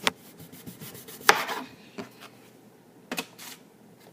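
Knife cutting a raw potato: a few sharp, irregular chopping knocks, the loudest about a second in.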